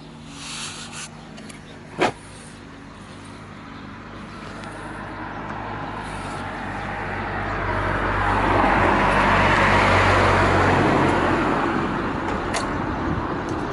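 Honda Zoomer's carbureted 50cc four-stroke single idling steadily, with a sharp click about two seconds in. A passing vehicle's rushing noise swells over it, loudest around the middle and fading near the end.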